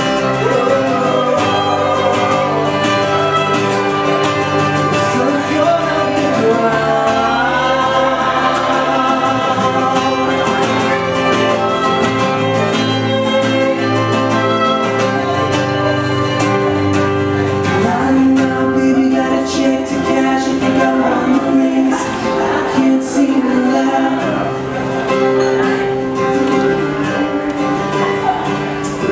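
Live acoustic band playing a song: strummed acoustic guitar, electric bass and violin, with singing.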